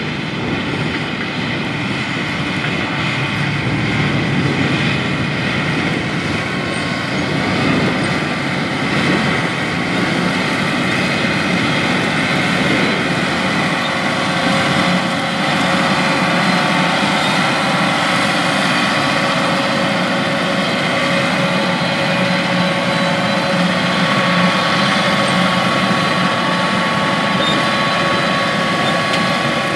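John Deere 8370RT track tractor's 9-litre PowerTech six-cylinder diesel working under load as it pulls a 24-row corn planter. A loud, steady drone with several steady whining tones over it.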